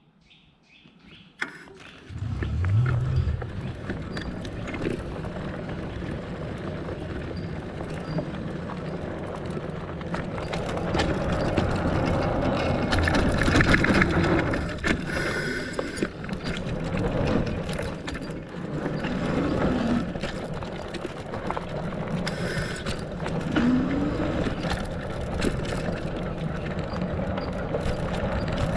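Fatbike riding over a dirt forest trail: steady rolling noise of its fat tyres on the dirt, with frequent clicks and knocks from the bike over bumps, starting about two seconds in.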